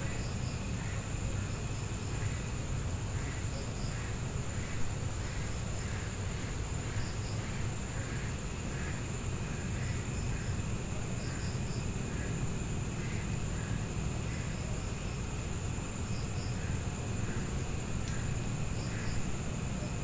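Evening outdoor ambience: night insects trilling steadily in several high pitches, with short chirps repeating over them, all over a steady low rumble.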